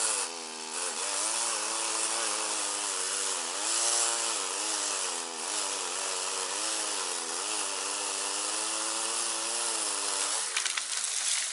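Two-stroke chainsaw running at a distance while cutting willow branches, its engine pitch dipping and rising as the chain loads and frees. About ten and a half seconds in the engine note drops away and a short crackling follows. Wind noise on the microphone underneath.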